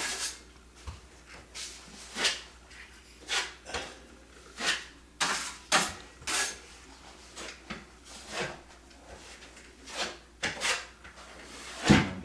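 Drywall knife scraping Durabond setting-type joint compound, loading from the pan and spreading it over mesh tape, in separate strokes about once a second with a louder one near the end. The compound is starting to set, so it is stiff under the blade.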